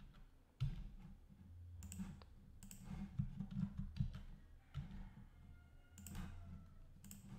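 Computer mouse and keyboard clicks, a few separate ones spread over several seconds, over a faint low hum.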